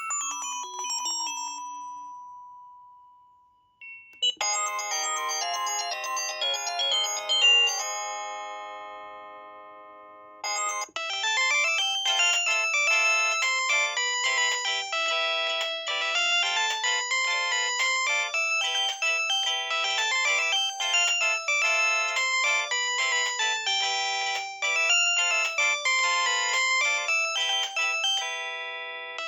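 Samsung SGH-C130 mobile phone playing its built-in polyphonic ringtones one after another. One melody dies away on a held note, a short tune starts about four seconds in with its last notes ringing out, then a longer, busier melody runs from about ten seconds in and stops just before the end.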